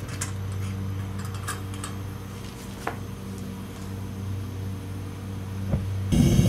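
Propane furnace burner running with a steady low hum and a couple of faint clicks. Near the end it suddenly becomes much louder, a heavy rumble that carries on.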